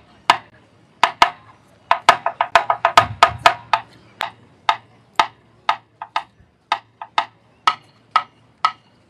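Taiko players' wooden sticks (bachi) clicking in a dry rhythm, with no drum-head strikes: a quick run of clicks about two seconds in, then single clicks about twice a second.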